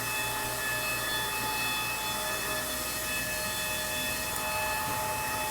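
Car wash machinery giving a steady whine of several high held tones over a constant hiss. This is the strange noise the operator doubts, though others have told him it sounds fine.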